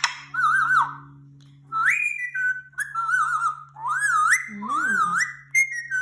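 Indian ringneck parakeet whistling: a run of warbling whistled phrases with wavering pitch and upward glides, over a steady low hum.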